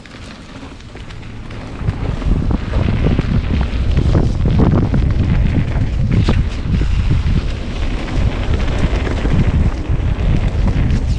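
Wind buffeting the microphone of a helmet or bike camera on a mountain bike riding fast down a dirt singletrack. The rush builds over the first two seconds as the bike picks up speed, then holds steady, broken by knocks from the bike going over bumps.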